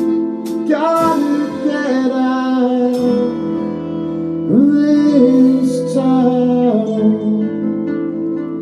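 Music from a band's song: guitar under a held melody line that slides up into new notes about a second in and again near the middle, with no sung words.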